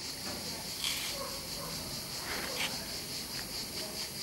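A steady, high-pitched chorus of insects chirring, pulsing a few times a second, with a couple of faint brief sounds.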